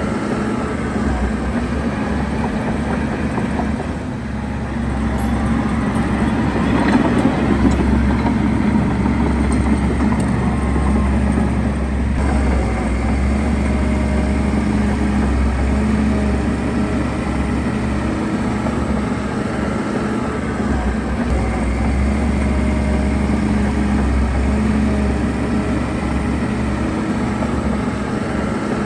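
Heavy earthmoving machinery at work: a large diesel engine running steadily, with a louder stretch of metallic clanks and rattles about five to eight seconds in.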